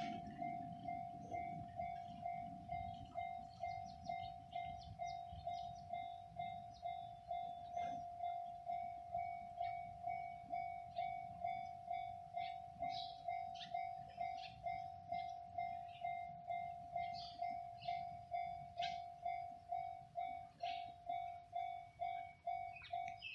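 Japanese railway level-crossing warning bell ringing, an electronic ding repeating evenly about twice a second, over a low rumble that is strongest at the start.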